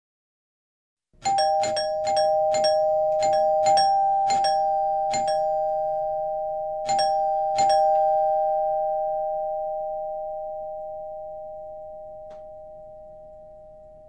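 Two-tone doorbell chime rung over and over, about ten quick strikes in some six seconds starting about a second in, then both notes ringing on and slowly dying away.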